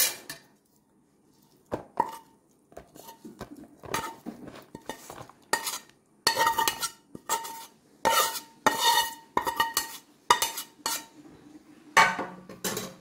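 A metal utensil scraping and knocking against a kadai as fried squid is scooped out of it for serving, in a run of irregular scrapes and taps, several of which leave a brief metallic ring.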